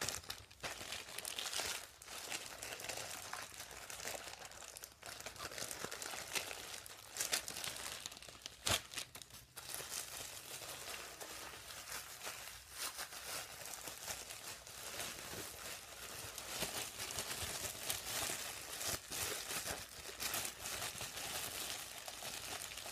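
Clear plastic wrapping crinkling and crackling as it is handled, pulled and torn open by hand, with a single sharp click about nine seconds in.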